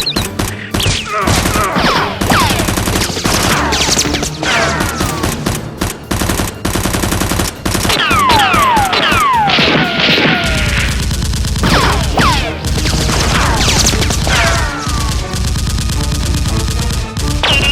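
Rapid bursts of machine-gun fire, a gunshot sound effect, over a music track with a steady low beat that comes in about two-thirds through. Several falling whistle-like tones cut across the shots.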